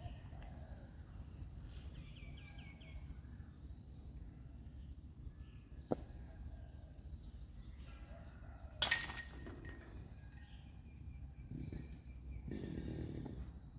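A disc golf disc strikes the metal chains of a putting basket once about nine seconds in: a short loud jangle that rings briefly. Faint bird chirps and a low outdoor rumble sit underneath, with a sharp click about six seconds in.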